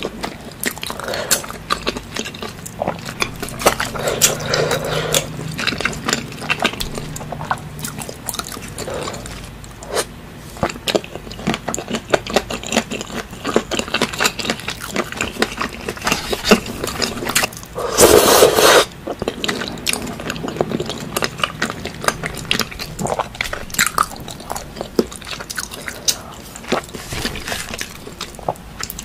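Close-up eating sounds of people chewing and smacking on food eaten by hand, a steady run of short wet clicks and crunches. About two-thirds of the way through comes a louder, breathy burst lasting about a second.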